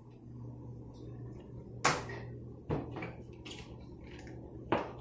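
Three sharp knocks as small kitchen appliances are moved and set down on the counter, over a low steady hum.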